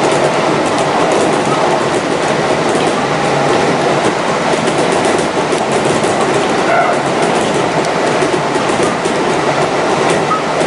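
Kintetsu 1259 series electric train running along the line, heard from inside the car: a steady rumble of wheels on rail with occasional clicks over rail joints.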